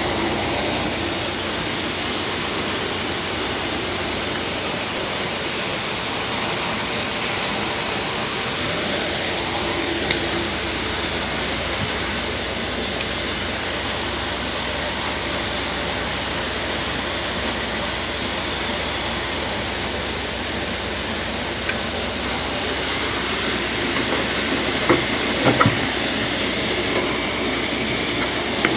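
Rakovica 65 tractor's diesel engine running steadily at idle, shortly after a cold start below freezing. A few short knocks sound near the end.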